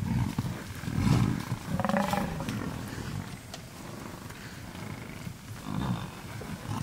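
Deep animal growls and grunts from lions clashing with charging Cape buffalo. There are several loud bursts in the first two seconds and another near the end.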